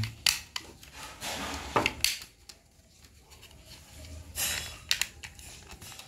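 Plastic casing of a remote-control switch receiver module being handled and pressed shut: a few sharp clicks and rubbing of plastic against plastic.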